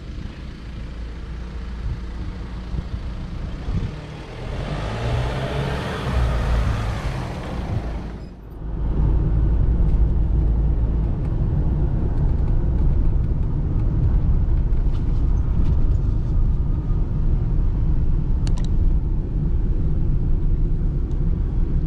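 A car drives past on the street, its tyre and engine noise swelling for a few seconds. After a sudden break, steady low road and engine rumble is heard inside a moving car's cabin.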